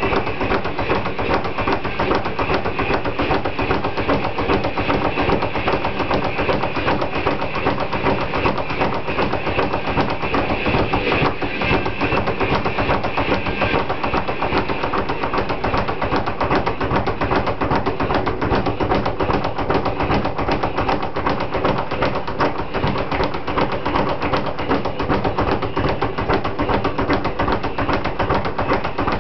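Speed bag being punched in a fast, unbroken rattle of strikes against its rebound platform.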